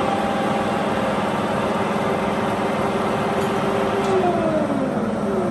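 Clausing Colchester 15-inch tool room lathe running under power with a steady mechanical hum and whine from its headstock. About four seconds in, a tone glides down in pitch.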